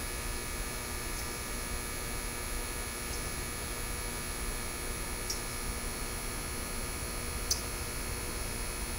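Steady low hum and hiss with a few faint, short high clicks about two seconds apart.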